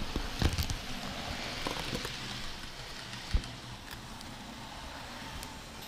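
Model train running on the layout's track, heard close to the wheels: a steady rattling hiss of wheels on the rails with scattered clicks over rail joints, one sharp click a little after three seconds in.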